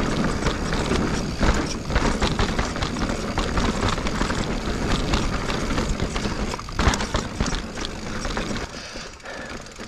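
2021 Giant Reign Advanced Pro 29 mountain bike riding over sandstone and dirt singletrack: a constant low rumble of tyres and wind, with frequent clicks and knocks as the bike rattles over rock. It quietens briefly near the end.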